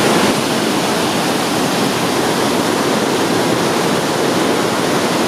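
The Rhine Falls roaring close up: a loud, steady rush of white water pouring over the falls.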